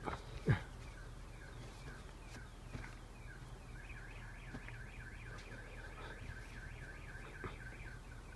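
Two sharp knocks near the start, then a faint, rapid warbling chirp repeating about five times a second from midway on, over a steady low hum.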